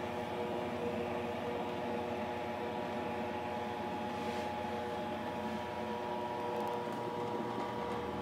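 Electric dough-sheeting machine's motor and rollers running with a steady hum while whole-wheat dough is fed through the rollers.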